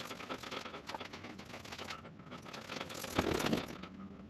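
Light rustling and crackling handling noise, with a louder rustle about three seconds in.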